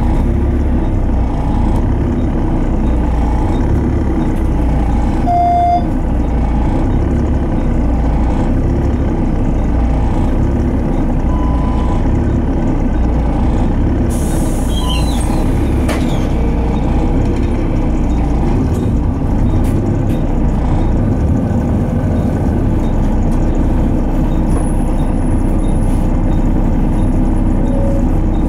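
Volvo D7C six-cylinder diesel of a Volvo B7TL bus running, heard from inside the lower deck: a steady low drone at idle, a short beep about five seconds in, and a hiss of air about halfway through as the bus gets ready to pull away.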